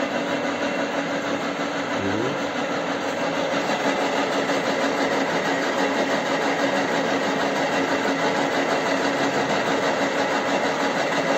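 Horizontal milling machine running steadily, its spindle and arbor turning the gear-cutting cutter: an even mechanical whir with a steady hum.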